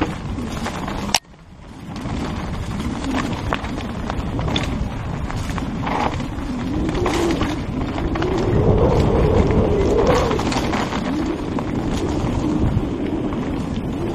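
Mountain bike riding fast down a rough dirt singletrack, with wind rushing over the helmet microphone and the bike rattling over bumps. A sharp knock comes about a second in, then the sound drops away briefly and swells back.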